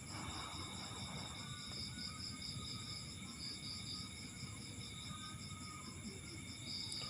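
Background chirring of insects: several steady high-pitched tones, one of them pulsing a few times a second, over a faint low rumble.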